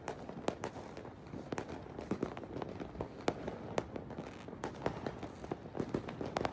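Many fireworks bursting at once: an irregular, unbroken scatter of sharp pops and bangs, a few louder cracks standing out over a steady crackling haze.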